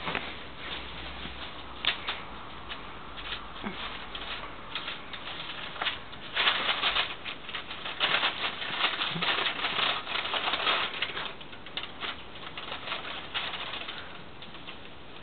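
Siberian husky puppies scuffling on a cloth sheet over a tile floor: rustling and scrabbling, with a quick patter of small clicks, busiest in the middle stretch.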